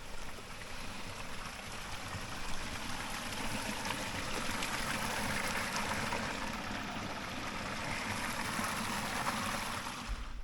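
Stream water running steadily, an even rushing sound that cuts off suddenly at the end.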